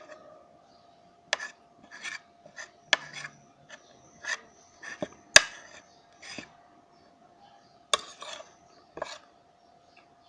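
Eating utensils scraping and clicking against a plate in about a dozen short, irregular strokes, over a faint steady tone.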